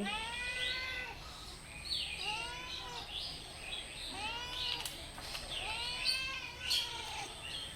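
Kittens meowing repeatedly: a string of short, high meows, each rising then falling in pitch, some overlapping at different pitches.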